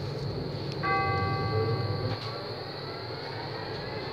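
Electric tram's traction drive whining as it pulls away: a chord of steady tones starts suddenly about a second in, then slowly rises in pitch as the tram gains speed, over the low rumble of the car.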